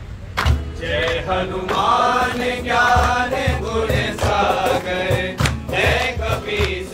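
A group of men singing a Hindu devotional chant to Hanuman in unison, over dholak drum beats and acoustic guitar. The drum beats run throughout, and the voices come in about a second in.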